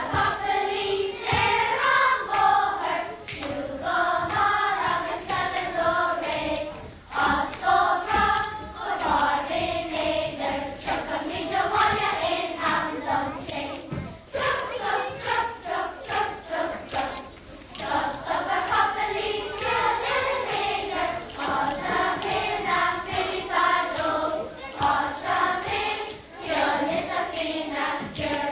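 A children's choir singing a song in unison, with hand claps sounding through the singing.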